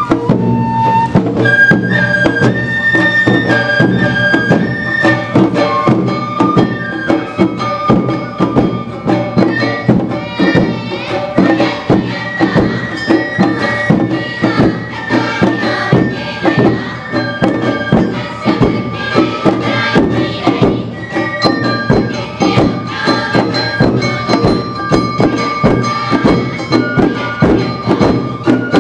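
Awa Odori dance music played live: a high bamboo flute melody with held notes over a steady, driving beat of drums and percussion.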